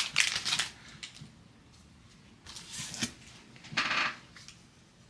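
Trading cards being handled: a foil card pack crinkling as the cards are pulled out and slid through by hand. The sound comes in short rustling bursts, the loudest right at the start and two more about halfway through.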